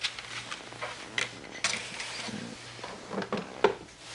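Scattered clicks and knocks of hands handling the casing of a Dell E6400 XFR rugged laptop, around its carrying handle and palm rest, while it is being taken apart.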